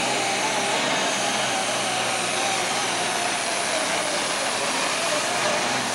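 Turbocharged diesel Super Stock pulling tractor running at full throttle under heavy load while dragging a weight sled. The engine noise is loud and steady, with a tone that wavers slightly in pitch.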